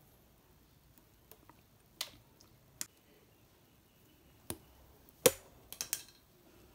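Sharp snips and clicks of pliers cutting and stripping the insulation off thin wires: a handful of separate snaps, the loudest about five seconds in, followed by a quick cluster of three or four.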